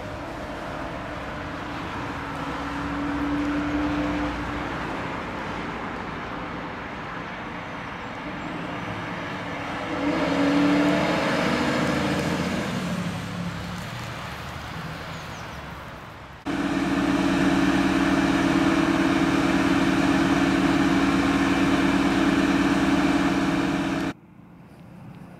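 A fire engine on an emergency run drives past: its diesel engine and tyres grow to their loudest about ten seconds in, and its siren drops in pitch as it goes by. About sixteen seconds in, a louder steady drone starts abruptly and cuts off near the end.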